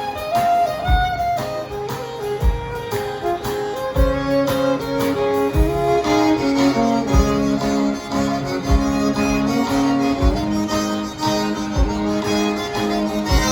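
Live band playing an instrumental passage: a fiddle carries the melody over guitar, with a low beat falling about every second and a half.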